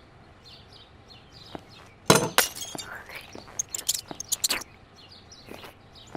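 A sudden loud crash about two seconds in, followed by a scatter of sharp clinks, like something breaking; faint bird chirping runs underneath.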